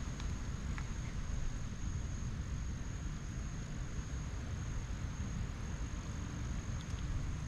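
Strong wind buffeting the microphone as a steady, fluttering low rumble, over an even hiss of light rain, with a thin, steady high whine throughout.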